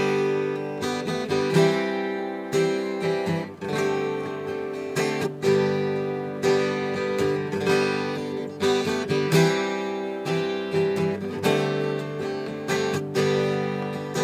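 Steel-string acoustic guitar strummed in chords, the instrumental intro of a song before the singing comes in.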